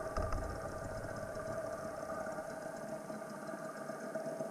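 Muffled underwater sound picked up by a GoPro in its waterproof housing on the seabed: a steady low hum with a few faint, steady whining tones and a couple of faint ticks near the start.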